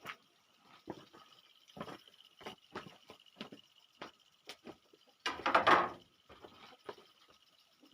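Close-up eating and food-handling sounds: scattered small clicks and taps, with a louder crackling rustle lasting under a second about five seconds in.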